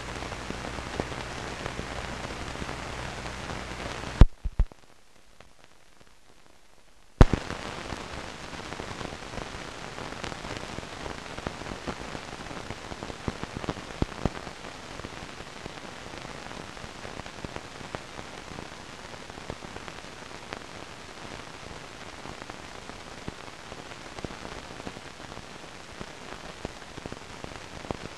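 Steady hiss with scattered crackles from an old recording of the air-to-ground radio link, with no voice. About four seconds in the sound drops out for about three seconds, with a sharp click at each end of the gap.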